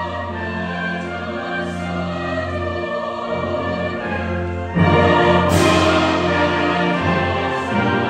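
Choir and brass band performing a festive Christmas piece in held, sustained chords, the full ensemble coming in suddenly louder about five seconds in.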